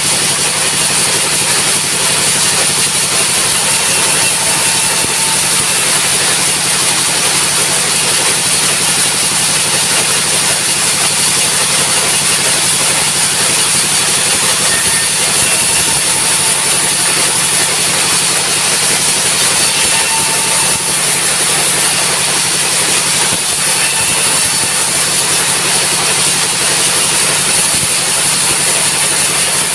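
Sawmill machinery running steadily at full throttle: a loud, unbroken engine-and-saw drone with a constant high hiss.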